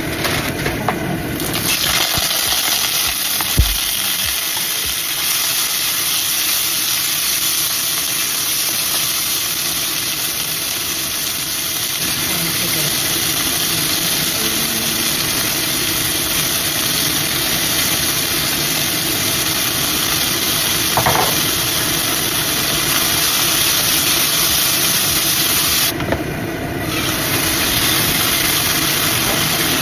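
Strips of chicken thigh frying in hot grapeseed oil in a pan: a steady sizzling hiss that starts about a second and a half in, drops out for about a second near the end and comes back.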